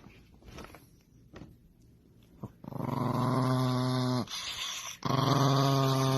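A dog growling in two long, even growls, the second starting about a second after the first ends.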